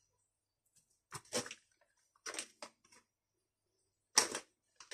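Plastic crab-stick packet crinkling as it is handled, in three short rustles, the loudest near the end.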